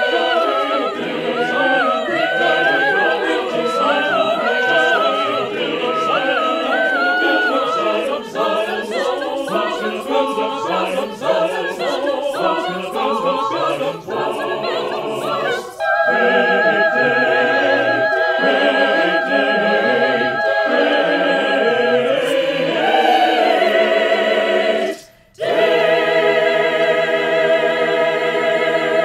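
Mixed-voice church choir singing a spiritual: moving, rhythmic vocal lines with a high voice repeating short figures, giving way about halfway through to long held chords. The singing breaks off suddenly for a moment near the end, then comes back on a final sustained chord.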